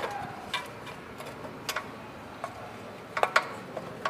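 Scattered light metallic clicks and clinks of engine parts and tools being handled while a small engine's crankcase is taken apart, with a sharper pair of clinks a little past three seconds in.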